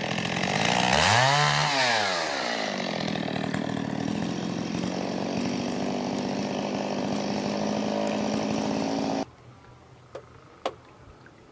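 Chainsaw revving up and back down about a second in, then running steadily while limbing a fallen storm-downed tree. It cuts off suddenly about nine seconds in, leaving faint outdoor quiet with a few small ticks.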